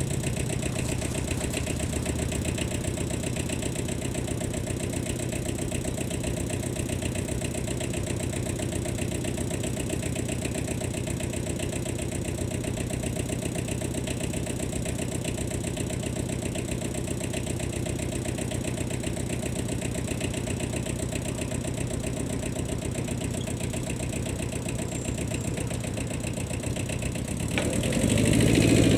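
Small diesel engine of a Kubota 5001 compact tractor idling steadily, then revving up and getting louder about a second and a half before the end.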